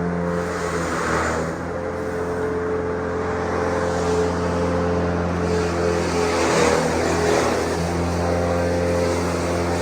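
A grass chopping machine running steadily. Its pitch dips under load with bursts of chopping noise about a second in and again around six to seven seconds in.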